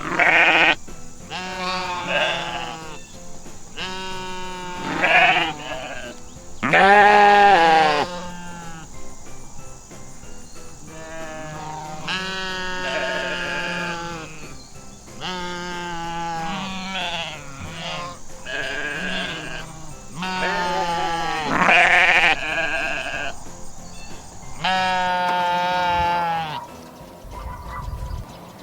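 Sheep bleating again and again, one wavering call after another, over steady background music.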